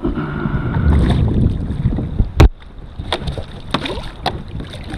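Wind on the microphone and handling knocks and clicks aboard a fishing kayak, with one sharp loud knock about halfway through followed by a few lighter clicks.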